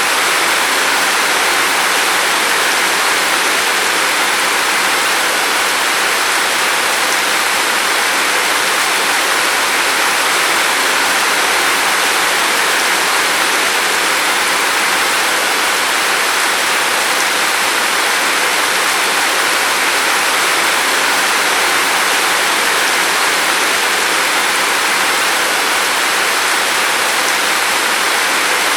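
Steady rain falling, an even hiss with no separate drops, gusts or thunder standing out.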